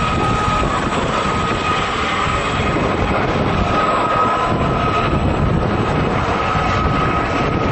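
Helicopter flying over, its rotor and engine noise loud and steady, with a steady high whine running through it.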